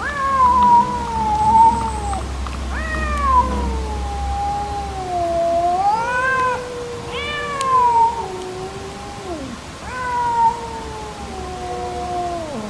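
Two domestic cats yowling at each other in a face-off: a string of long, wavering howls, most sliding slowly down in pitch. These are the threat calls of a stand-off before a fight.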